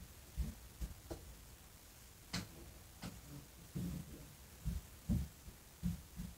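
Faint, irregular low thumps and one sharp click about two and a half seconds in: movement and handling noise as a makeup brush is worked along the eyelid, with no voice.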